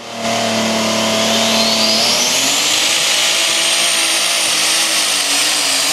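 Modified mini-rod pulling tractor running hard under load. A high whine rises over the first two seconds and then holds steady above the engine.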